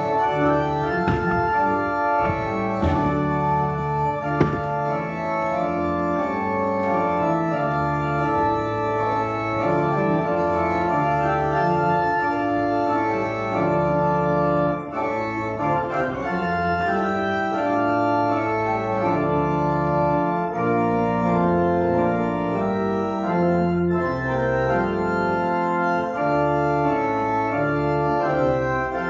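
Church organ playing a slow piece in sustained full chords that change every second or so.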